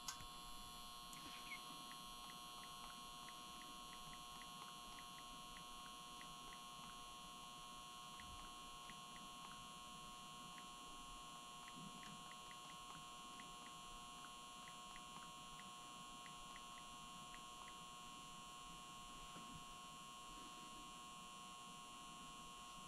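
Near silence: a faint steady electrical hum with faint, irregular ticking.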